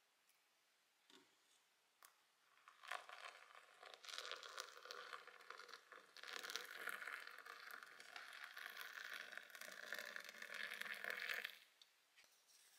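Water poured in a thin stream into a glass mug of matcha powder, splashing and bubbling steadily from about three seconds in and stopping suddenly near the end.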